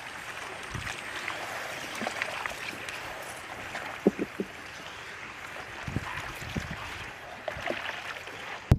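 Water sloshing and trickling steadily, with a few soft knocks; it cuts off suddenly near the end.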